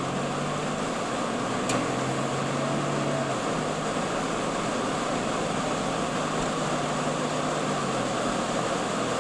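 Steady road and engine noise inside a moving car's cabin, an even rushing hum with a low drone, and a single brief tick about two seconds in.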